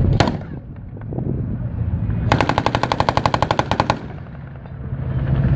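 A machine gun firing one rapid automatic burst of under two seconds, starting about two seconds in, preceded by a single sharp crack just after the start, over a steady low rumble.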